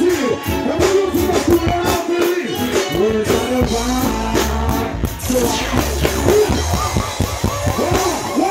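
Live reggae band playing loudly over a concert PA, with a male vocalist singing into a microphone over a steady bass and drum beat.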